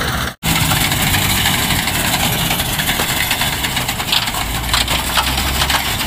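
Combine harvester running: a steady engine hum under the dense rattle and clatter of its cutting and threshing machinery. The sound drops out for an instant less than half a second in, then continues unchanged.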